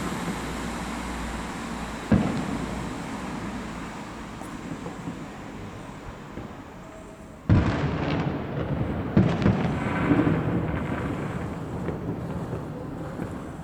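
Fireworks shells bursting: a sharp bang about two seconds in, then a louder cluster of bangs from midway on, each followed by a long rolling rumble.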